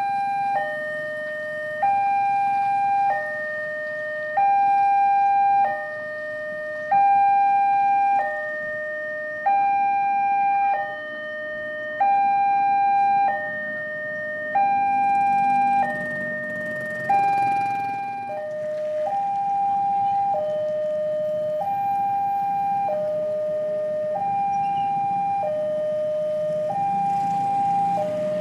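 Railway level-crossing warning alarm sounding its two alternating tones, high then low, switching about every one and a quarter seconds, to warn that a train is approaching and the barrier is down. A low rumble of waiting road traffic sits underneath and grows louder in the second half.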